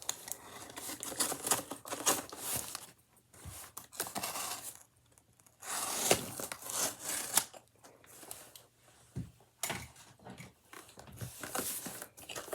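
A small cardboard box being opened by hand: irregular tearing and rustling of cardboard and packaging, with a few sharp clicks and short pauses.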